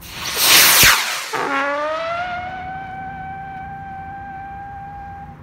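Llorona salute-head rocket firework launching with a loud rushing whoosh for about a second, then a whistle that rises briefly and holds one steady pitch for about four seconds as the rocket climbs.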